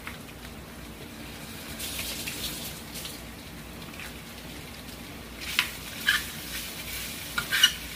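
Food sizzling in a frying pan during a sauté, an even hiss, with a few sharp clinks of a utensil against the pan in the second half.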